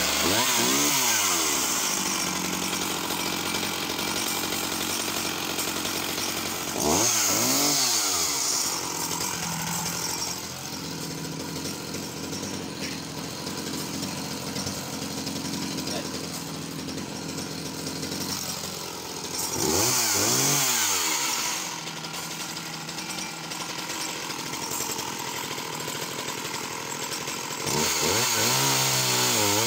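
Sachs Dolmar 111 52cc two-stroke chainsaw running, revved up three times and dropping back to a lower, steady run between revs, then held at higher revs near the end.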